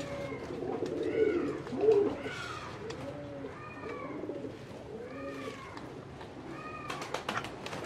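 Domestic pigeons cooing in their coops: a string of rising-and-falling coos, about one a second. A few sharp clicks come near the end.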